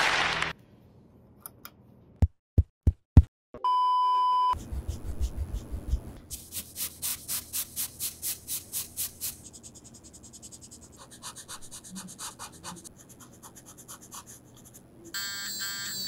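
A few sharp knocks, then a steady beep lasting about a second. After that a brush scrubs back and forth on drawing paper at about four strokes a second, erasing the drawing, and the strokes grow softer after a few seconds. Near the end a sound with several steady pitches begins.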